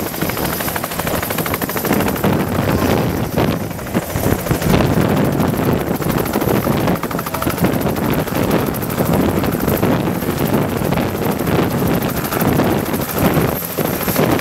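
Bell 206 helicopter running close by with its two-blade main rotor and turbine at high power, a steady rapid blade chop as it gets ready to lift off.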